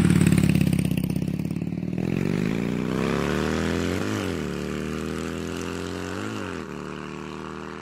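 Motorcycle engine running low and steady, then pulling away with its pitch climbing and shifting up through the gears about every two seconds, gradually getting fainter.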